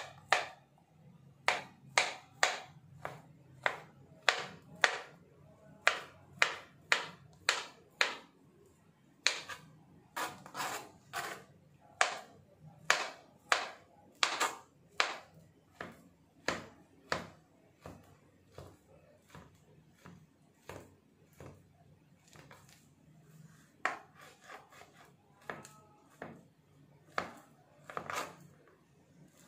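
Knife slicing bananas into rounds, each cut ending in a sharp tap on the cutting board, about two a second; the taps grow fainter and sparser for a few seconds past the middle, then come again near the end.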